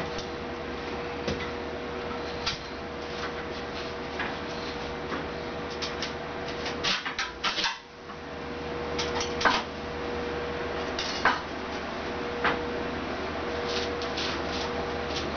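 Scattered light metallic clinks and clanks of a 16-gauge mild steel strip being handled and set against the fingers of a manual sheet metal brake, over a steady hum. The sound drops out briefly about eight seconds in.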